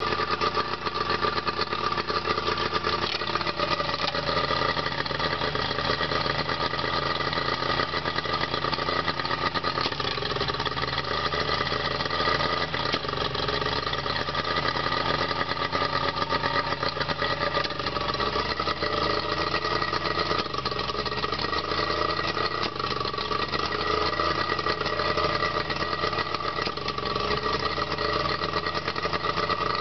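A 1997 Evinrude 25 hp two-stroke outboard runs steadily at idle, out of the water on a flushing hose. Its speed drops a few seconds in and picks up again about two-thirds of the way through.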